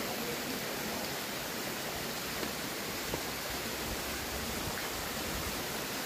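Steady, even rush of a waterfall, about 7.5 m of water falling into a pool, with no other sound standing out.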